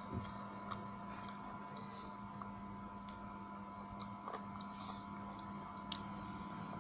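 Close-miked eating: scattered small clicks and smacks of chewing and of fingers handling food, over a steady low hum.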